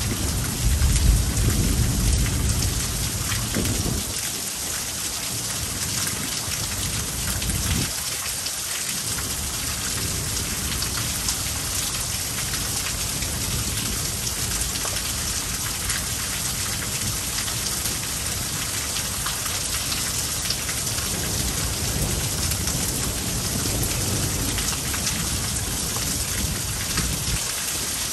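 Heavy rain pouring steadily in a thunderstorm, with a rumble of thunder dying away over the first few seconds. A fainter low rumble comes back a few seconds later and lingers under the rain.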